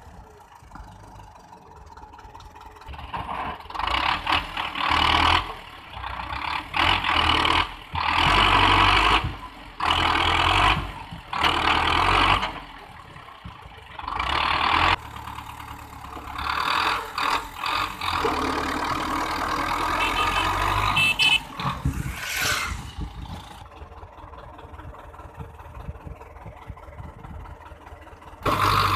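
Belarus tractor's diesel engine running, its sound swelling and dropping over and over as the front loader works, with quieter stretches near the start and toward the end.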